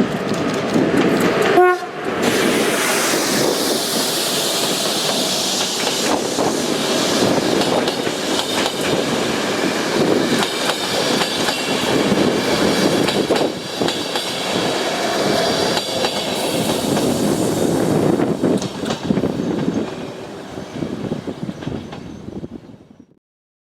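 A short horn note from BDŽ locomotive 46 219 about two seconds in, then its international train rolling past with wheels clicking over the rail joints. The sound fades away near the end.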